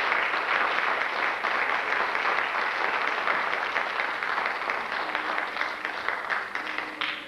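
Theatre audience applauding at the end of an act: many hands clapping together, slowly thinning, then cut off abruptly near the end.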